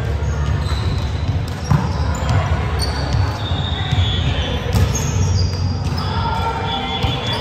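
Sneakers squeaking on an indoor court during a game: many short, high squeaks, with a few sharp ball thuds and players' voices in a large hall.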